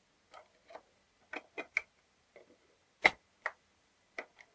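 Small metal clicks and taps from a GU multipoint lock case being reassembled, its metal cover plate and inner parts pressed and worked with fingers and a screwdriver. About ten sharp clicks at irregular spacing, the loudest a little after three seconds in.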